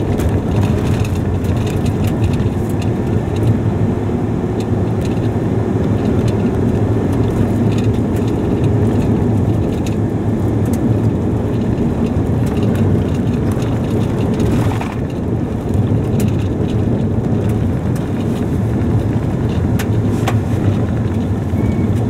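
Car driving on a dirt road, heard from inside the cabin: a steady rumble of engine and tyres, with scattered light clicks.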